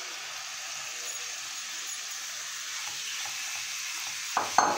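Marinated chicken pieces sizzling steadily in hot butter in a non-stick frying pan as a spatula spreads them out, the start of high-flame frying. A brief louder sound near the end.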